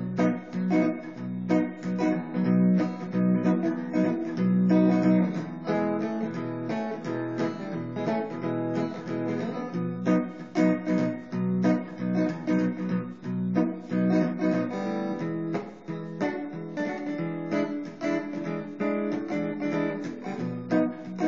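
Sunburst Stratocaster-style electric guitar played solo, with fast strummed chords and picked runs, many sharp note attacks each second.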